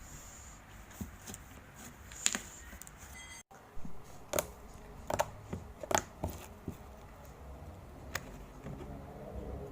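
Irregular light clicks and taps, a few a second at most, with a short gap about a third of the way through.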